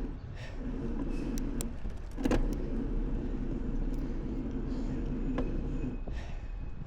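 Bicycle riding over pavement: steady rolling noise with rattling from the bike, and a sharp clack about two seconds in.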